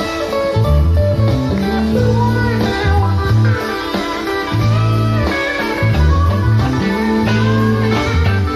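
Live jazz-funk fusion band playing, with a moving bass line of held low notes under guitar and keyboard lines.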